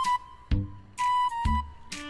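Background music: a melody of held notes over low beats about once a second.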